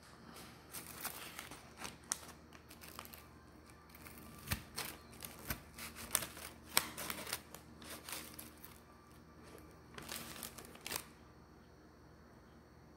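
A metal spoon prodding and scraping under a crispy fried chicken cutlet in its paper bag, with the paper crinkling: an irregular string of clicks and crackles that stops about 11 seconds in.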